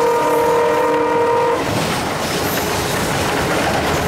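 The horn of an Alco WDM3A diesel locomotive, heard from inside the cab, sounding a steady chord that cuts off abruptly about one and a half seconds in. After it, the locomotive's diesel engine running and its wheels rattling over the track fill the cab.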